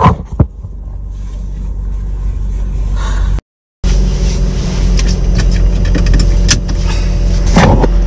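Steady road and engine rumble of a car heard from inside the cabin while driving, with a few light clicks. The sound drops out entirely for a moment about three and a half seconds in.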